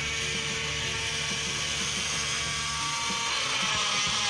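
Small DC motors of a homemade drilling rig whirring, with steady clicking from the gearing, as the drill bit spins and is fed up toward a wooden block.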